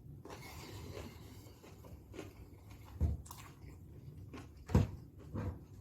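A person chewing food close to the microphone, with a few sharp crunches: one about three seconds in and a louder one shortly before five seconds in.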